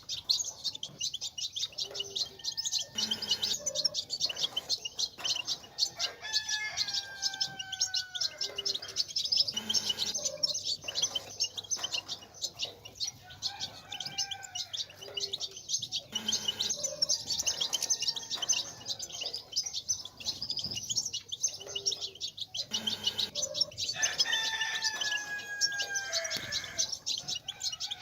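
European goldfinches twittering: a fast, continuous stream of high chirps and trills. A longer, lower falling call cuts through about six seconds in and again near the end.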